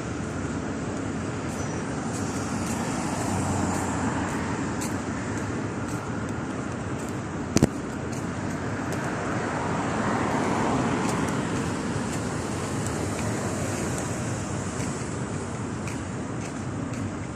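Street traffic noise with two swells as vehicles pass, and a single sharp click just past the middle.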